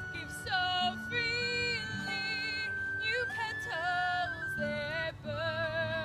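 A woman singing a slow song solo with wide vibrato, over a soft low accompaniment. Behind her an instrument holds one long high note that steps up to a slightly higher note about three seconds in.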